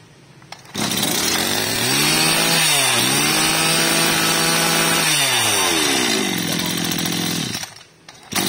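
26cc two-stroke brush cutter engine revved up from idle on the hand throttle. It dips briefly about three seconds in, is held at high speed, then drops back to a lower idle about five to six seconds in.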